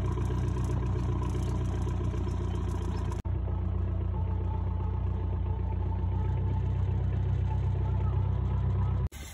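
Boat engine of a river pontoon ferry running steadily, a low even drone, with a brief drop about three seconds in.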